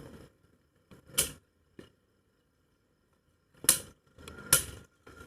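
Hard plastic-and-metal clacks of spinning Beyblade tops striking each other in a stadium: about five separate sharp hits, the loudest about a second in and two close together near the end, with a quiet pause in the middle.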